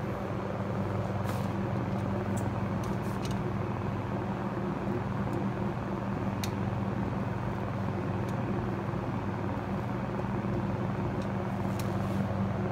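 Steady low mechanical hum, like an idling vehicle engine or traffic, with a few faint light clicks.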